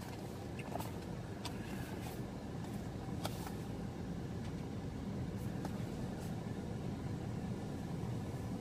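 A steady low vehicle rumble, with a few faint clicks as the air-cell seat cushion is handled.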